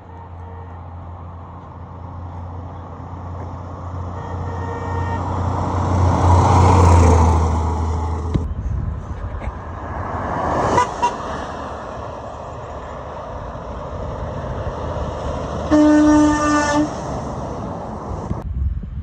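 Trucks passing on a road, their engine and tyre noise building to a peak about six to seven seconds in and again around eleven seconds. Near the end a truck horn sounds once for about a second.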